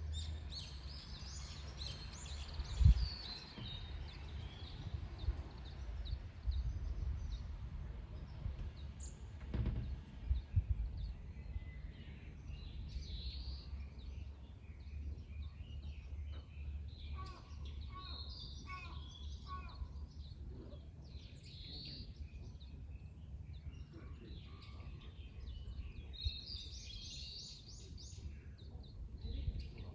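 Wild birds singing and calling, many short chirps and trills, busiest in the second half, over a steady low outdoor rumble. Two louder low thumps sound about 3 and 10 seconds in.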